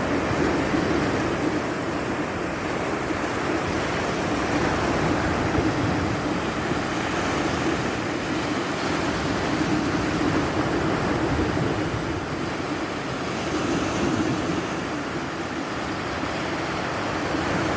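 Rushing water making a steady noise that swells a little now and then.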